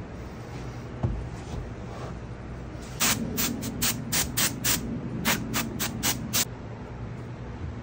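Aerosol spray can fired through a thin straw into a sand mould cavity in about a dozen short hissing puffs, one after another over three or four seconds. A single sharp knock comes about a second in, over a steady low hum.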